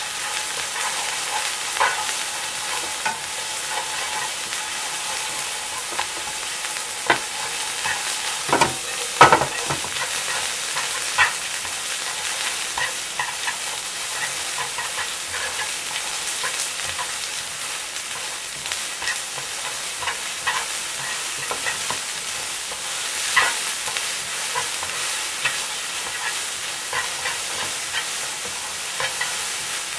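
Hita-style yakisoba noodles, bean sprouts and garlic chives sizzling steadily in a frying pan as they are stir-fried with wooden chopsticks, the noodles frying until crisp. Scattered clicks and knocks of the chopsticks against the pan come through the sizzle, loudest about nine seconds in.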